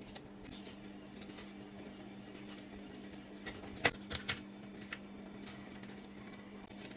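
Light clicks and taps of hands and utensils handling food for a marinade, with a sharp click about four seconds in, over a steady low hum.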